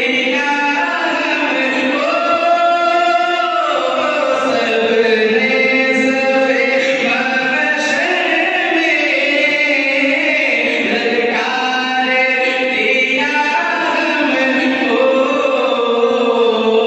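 A man's voice reciting a naat, an Urdu devotional poem, in long drawn-out melodic phrases through a microphone and loudspeakers.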